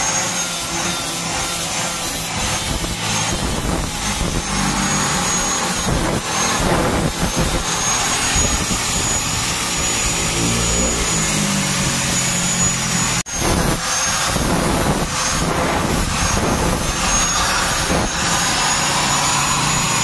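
Toyota Vios engine running through an aftermarket exhaust with a re-elbow pipe and HKS muffler: a loud, steady exhaust roar whose engine note shifts in pitch about ten seconds in. The sound cuts out for an instant about thirteen seconds in.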